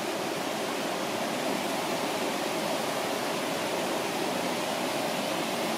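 The Falls of Dochart, a rocky river cascade, rushing steadily.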